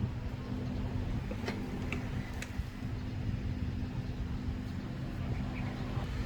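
Hot air rework gun blowing steadily, a low fan hum with air hiss, as it heats a SIM card tray to desolder it from a modem's circuit board. A few faint ticks come about two seconds in.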